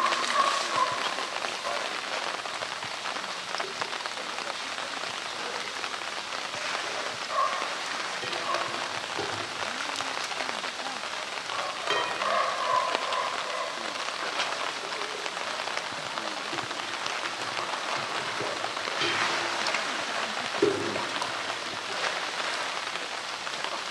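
Pool water splashing and sloshing steadily as a polar bear wades and noses a floating blue plastic drum around.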